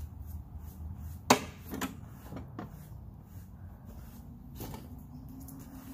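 A sharp, loud knock about a second in, then a few lighter knocks, from gear being handled on the sawmill bed as the log is readied to be flipped. A low, steady hum runs under them throughout.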